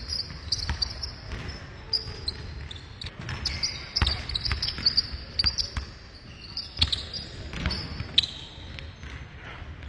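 Basketball dribbled on a hardwood gym floor in quick, irregular bounces, with short high-pitched sneaker squeaks as the players cut and shuffle.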